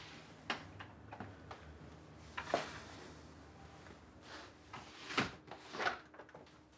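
A front door being handled: its metal lever handle and latch click, and the door knocks as it is opened and pushed shut, in a string of separate clicks and knocks, the loudest about two and a half seconds in and twice more near the end.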